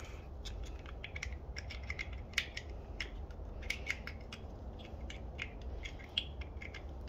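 Plastic wiring-harness plugs of an LED taillight being handled and pushed into their connectors: many light, irregular plastic clicks and ticks over a low steady rumble.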